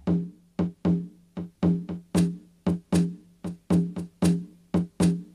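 Percussion music: sharp drum strikes in a quick, uneven rhythm, about three to four a second, each with a short low ring.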